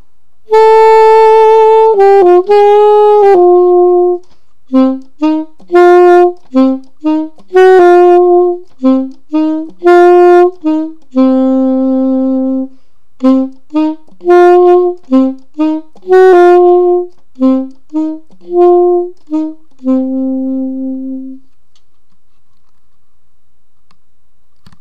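A solo saxophone plays an unaccompanied melody that mixes short detached notes with longer held ones. It stops about 21 seconds in.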